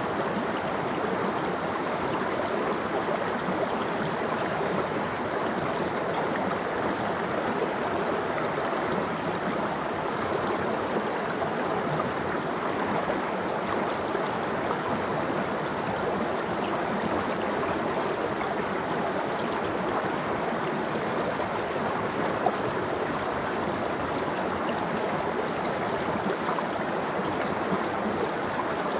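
Mountain stream of cold water flowing steadily over rocks, a continuous rushing with small gurgles and splashes.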